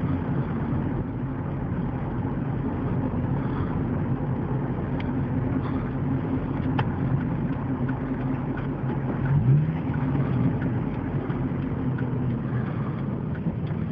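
Car engine running steadily while the car is driven, heard from inside the cabin, with a brief rise in engine pitch about nine and a half seconds in.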